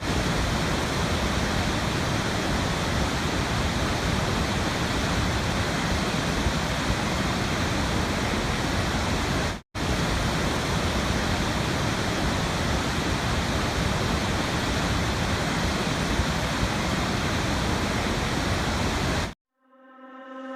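A steady, even rushing noise, cut off for an instant about ten seconds in and stopping just before the end. Music with ringing mallet notes begins as it ends.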